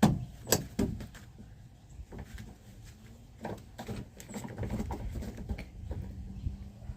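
Irregular clicks, knocks and scrabbling of hands and tools on a tractor's joystick cable linkage as it is adjusted, sharpest at the very start and about half a second and a second in, then softer handling.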